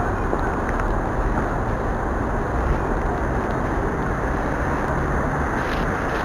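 Steady roadside traffic noise: an even, unbroken rush with no distinct events.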